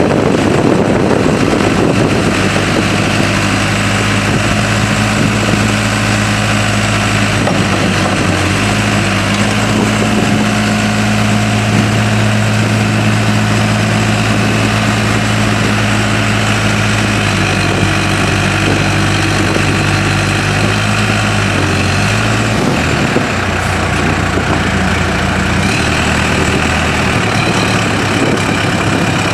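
The Case 580M Series II backhoe's four-cylinder diesel engine running steadily at low revs. Its pitch shifts a few times in the last third.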